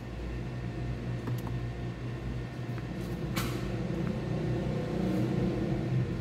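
A low steady hum that slowly grows louder, with a single sharp click about three and a half seconds in, as the Geely Coolray is switched on for a start attempt. The battery is too weak to start the engine.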